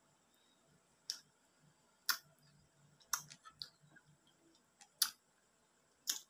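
Wet mouth clicks and lip smacks from eating soft ripe mango slices, a sharp click roughly every second.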